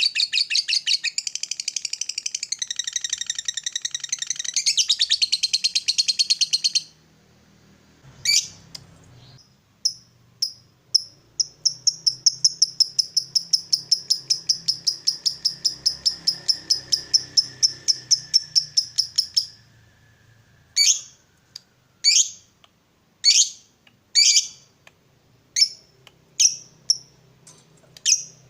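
Lovebird ngekek: long runs of rapid, high-pitched chattering trill, a pause with one chirp, a second long trill, then a string of single sharp chirps about once a second near the end. This is the long chatter that keepers play to provoke rival lovebirds.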